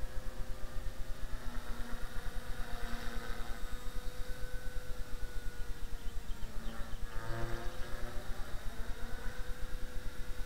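Blade 300 X electric RC helicopter flying overhead: a steady motor and rotor whine that drifts slowly in pitch, with higher tones that swell and glide as it passes. A fast regular pulsing runs underneath.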